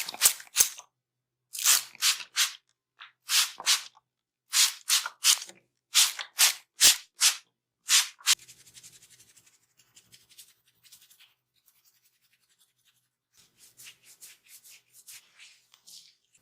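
Quick scratchy rubbing strokes close to the microphone, loud and in quick groups of two or three. About eight seconds in they give way to fainter, softer scratching.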